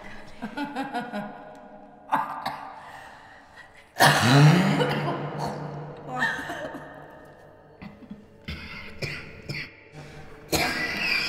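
A person coughing and gasping, with a sudden loud cry about four seconds in that rises in pitch.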